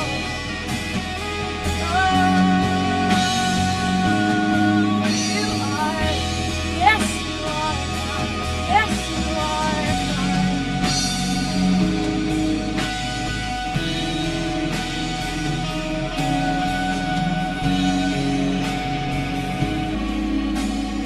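Live church worship band playing an instrumental stretch between sung lines: held chords on keyboard and guitar over bass and drums at a steady tempo.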